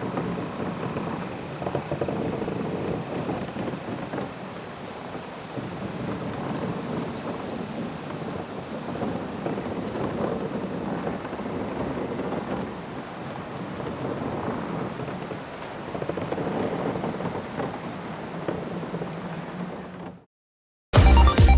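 Ewok village ambience loop, a film sound effect: a dense, steady wash of noise that cuts off abruptly about twenty seconds in. Music starts just before the end.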